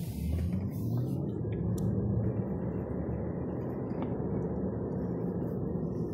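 Tesla Model 3 electric car under way, heard from inside the cabin: a steady low road and tyre rumble, with no engine note.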